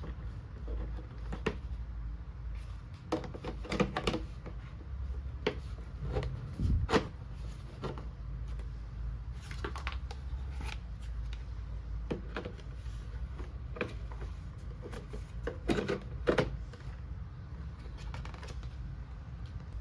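Small plastic toy kitchen pieces and their packaging being handled: scattered sharp clicks and taps that come in short clusters, over a steady low hum.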